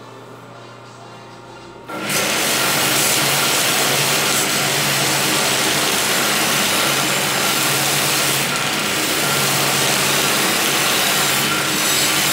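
Homemade belt sander driven by a sewing-machine motor, running with a low steady hum. About two seconds in, a steel knife blade is pressed against the abrasive belt and a loud, steady grinding hiss starts and holds.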